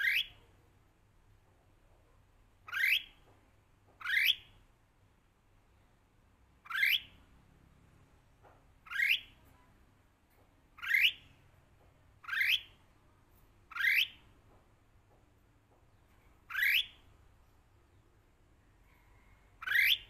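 Red-whiskered bulbul calling: a short, quickly rising note repeated about ten times, one to three seconds apart.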